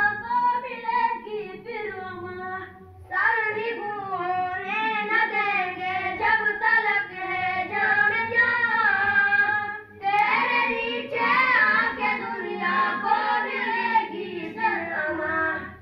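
A single voice chanting a melodic religious recitation in long, wavering phrases, amplified through the mosque's loudspeakers, with short breaks about three and ten seconds in.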